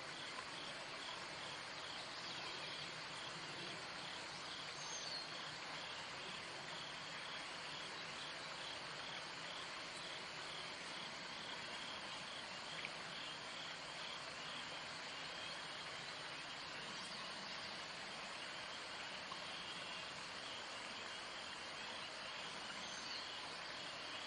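Steady outdoor hiss over a pond, with a faint, high chirp repeating evenly a few times a second throughout. The damselflies themselves make no sound that stands out.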